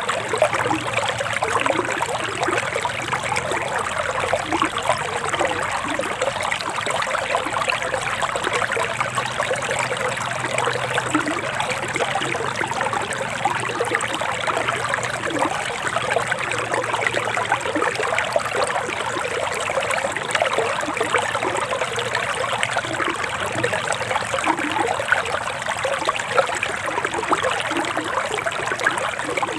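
Forest river water flowing steadily, a continuous trickling rush with small gurgles throughout.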